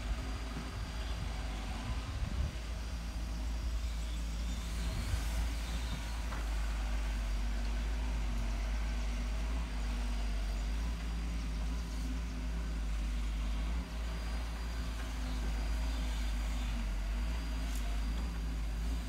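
Diesel engine of a wheeled hydraulic excavator running steadily as the machine digs and travels, with a few faint knocks.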